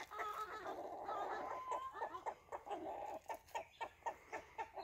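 A small flock of chickens clucking, a quick, uneven run of short clucks and brief calls, as the hens gather for treats.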